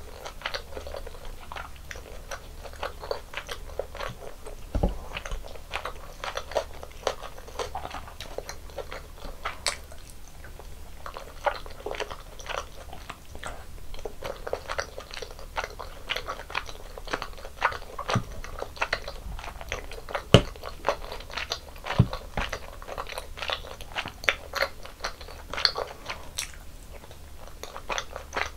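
Close-miked chewing and crunching of Korean snack food, with dense, irregular wet crackles and bites. A few dull low knocks stand out along the way.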